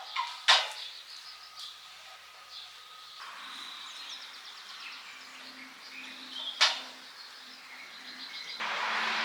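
Two sharp clanks from steel livestock panels being handled and fitted together, one about half a second in and one about six seconds later, with birds chirping in the background.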